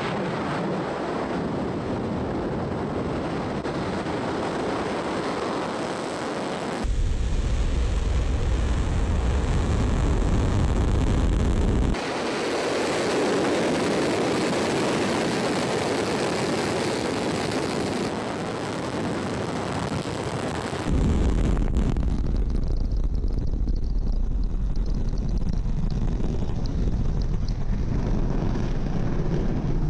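Angara-A5 heavy rocket's first-stage engines (five kerosene-oxygen RD-191s) firing at lift-off: a continuous, loud rush of exhaust noise. Its tone jumps abruptly several times between a deep, bass-heavy rumble and a brighter, hissier sound.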